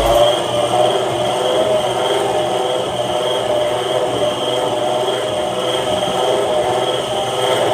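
Electric stand mixer running steadily at speed, its beater turning cake batter in a stainless steel bowl with a constant motor whir.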